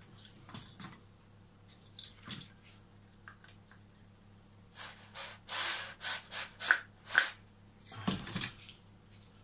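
Handling of a wild olive cutting and a small wooden board with tools: scattered rubs, scrapes and light knocks of wood, busiest in the second half.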